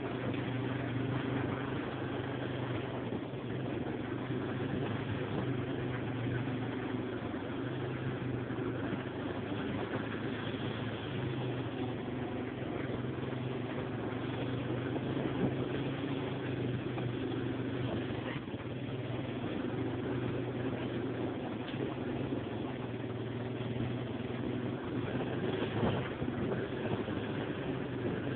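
Yamaha Warrior ATV's single-cylinder four-stroke engine running steadily under way on a dirt trail, with a couple of short knocks along the way.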